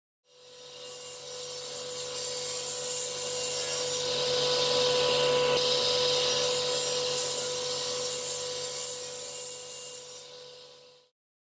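Sliding-table panel saw running with a steady hum while ripping a walnut board. The cutting noise swells in the middle of the cut and eases off toward the end.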